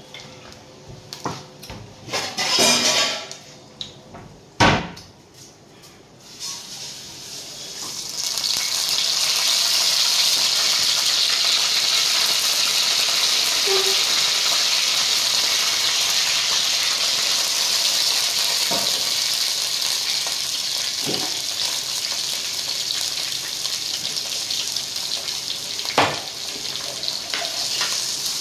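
Hot oil in a black cooking pot: a few utensil knocks, then about six seconds in a steady sizzle starts as green leaves go into the oil and fry. A spoon clinks against the pot a few times near the end.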